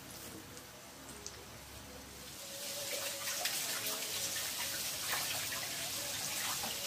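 Flour-coated chicken wings deep-frying in hot oil: a steady sizzling hiss full of small crackles, growing louder about two seconds in as the oil bubbles up around the wings.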